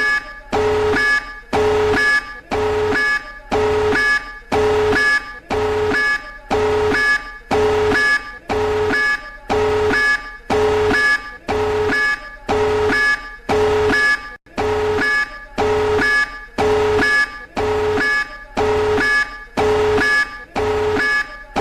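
Electronic emergency alert tone: a harsh, buzzy beep with a low and a high pitch sounding together, repeating about once a second, each beep about half a second long. It signals an emergency alert.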